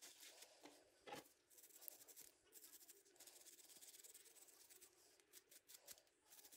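Faint scratching and light clicks of a small wire brush scrubbing carbon deposits on an engine valve, with a rag wiping the valve near the start.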